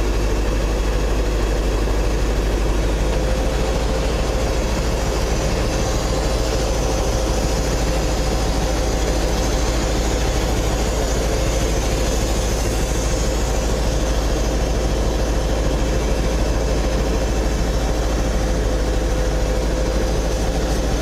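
Scania 143M's V8 diesel engine running steadily at a constant speed: a deep, even drone with a faint steady whine on top.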